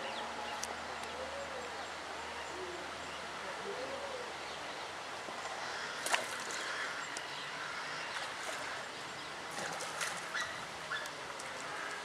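Steady background noise, with a sharp click about six seconds in and a few more around ten seconds in.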